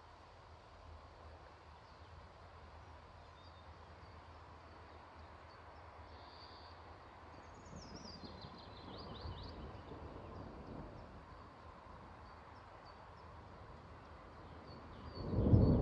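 Thunder: a faint low rumble swelling in the middle, then a loud, sudden crack of thunder near the end. Small birds chirp throughout, with one descending trill of song about eight seconds in.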